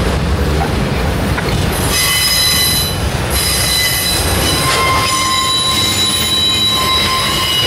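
Freight train of autorack cars rolling past with a steady low rumble of wheels on rail. From about two seconds in, high-pitched wheel squeal sets in and holds as several steady shrill tones together.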